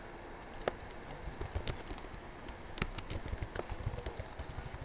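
Typing on a computer keyboard: a run of irregular keystroke clicks that starts about a second in and grows thicker.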